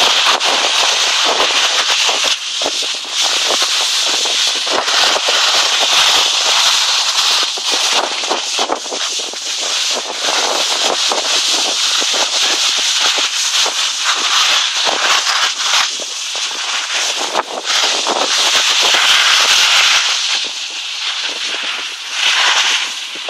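Skis sliding and scraping over a hard-packed snow track, a continuous rough hiss full of crackling chatter. It thins out near the end.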